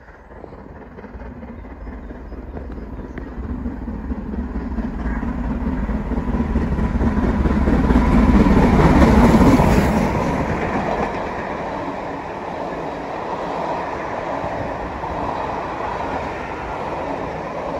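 A train passing close by: the rumble builds steadily, is loudest about nine seconds in as the train draws level, then carries on at a steady level as the rest of it rolls past.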